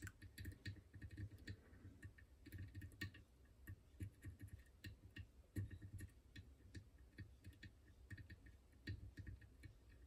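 Faint, irregular little clicks of a steel lock pick pushing the pin stacks of a French Izis pin-tumbler lock under tension, several a second, with soft handling bumps beneath. Each pin touched gives a small click while the pins are worked toward the shear line.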